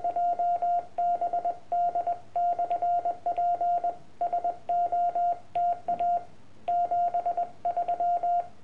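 Morse code sidetone from a Yaesu FT-817 transceiver: a single steady beep keyed on and off in dots and dashes, with quick runs of dots, sent with a homebrew iambic paddle whose levers are paper clips.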